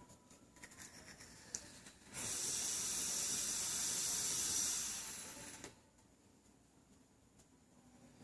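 A sleeping person snoring: one long hissing breath out, about three and a half seconds, tailing off at the end, with a few faint ticks before it.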